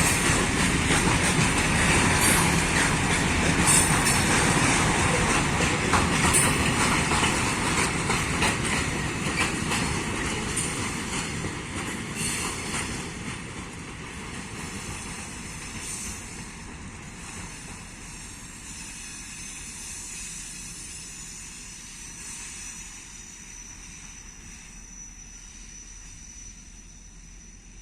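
Train rolling past on the rails, wheel and rail noise with clicks from the wheels, fading steadily as it moves away. A thin high-pitched tone lingers through the second half.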